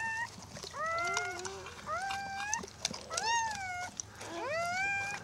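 Newborn Karakachan puppy crying: a string of about five short, high cries, roughly one a second, each rising then falling in pitch.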